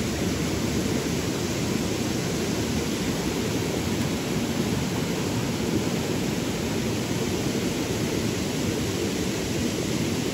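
Steady rush of a stream's water flowing over rocks, an even noise with no breaks.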